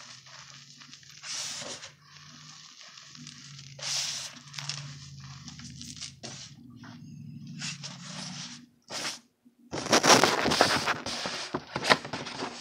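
Hands squeezing, pressing and raking a powder mix of cornstarch and baby powder, giving soft crunches in bursts, loudest about ten seconds in.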